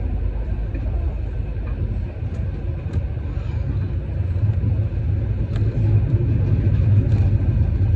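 Steady low rumble of a moving vehicle, growing louder about two-thirds of the way through.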